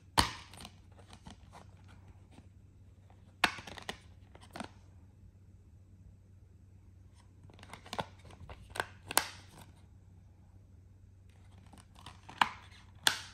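Plastic Blu-ray case being handled: a sharp snap as it is opened at the start, then scattered clicks and knocks of the hinged case and its disc hub, with more snaps as it is closed and turned over.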